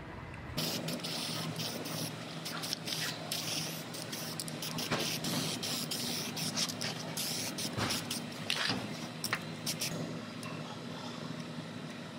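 Aerosol can spraying in short, repeated hissing bursts, over a steady low hum.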